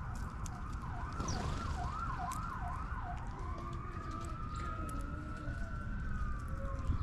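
Emergency vehicle siren: a few quick up-and-down yelps about a second in, then a long slow wail that rises and falls, over a steady low rumble.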